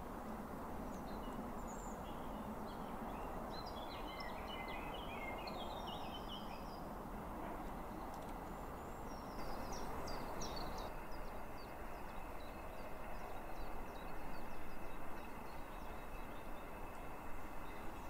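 Small birds chirping and singing in short bursts against a steady outdoor background noise, which gets a little louder about nine seconds in.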